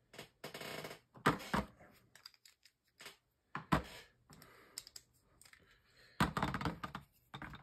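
Irregular plastic clicks and rattles of Beyblade Burst tops and their parts being handled between battles, with a longer patch of clattering near the end.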